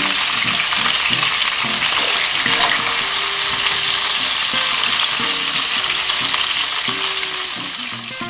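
Flour-dusted beef pieces sizzling in hot olive oil in a frying pan: a steady, loud hiss that fades out near the end.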